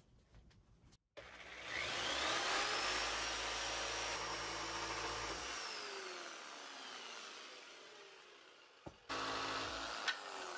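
Corded jigsaw cutting through two clamped wooden boards: the motor whine rises as it speeds up, holds steady with a low rumble while the blade cuts, then falls away as the saw winds down. Near the end the saw runs again briefly and winds down once more.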